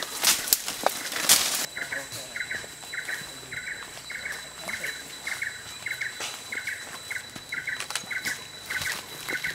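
Brush rustling and footsteps through undergrowth for about the first second and a half. Then a high double chirp repeats steadily about twice a second, over a faint steady high whine.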